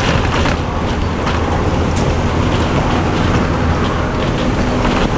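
Cummins LT10 straight-six diesel of a Leyland Olympian double-decker bus running steadily at cruising speed, heard from inside the cabin with wind noise and a few short rattles.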